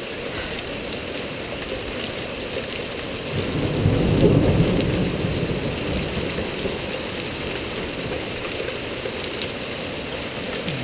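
Steady downpour of rain and hail, with a low roll of thunder that swells about three and a half seconds in and fades over the next couple of seconds.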